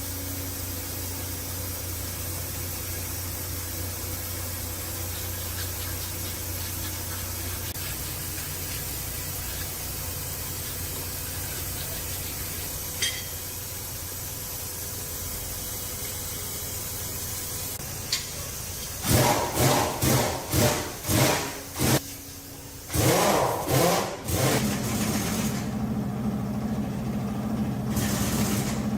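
Toyota HiAce engine being cranked on the starter in a quick series of loud strokes, pausing and cranking again, then catching and running steadily near the end. Before that, a steady low hum with two sharp clicks.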